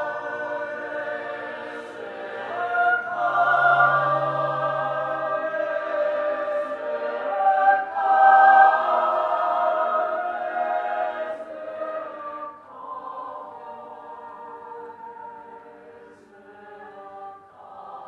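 Mixed choir of men's and women's voices singing sustained chords, loud at first and growing softer after about twelve seconds.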